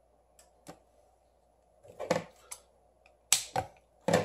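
Sharp clicks and taps from fingers handling the phone's bare metal frame and a roll of double-sided tape: two faint ones early, then a quicker run of louder ones from about two seconds in.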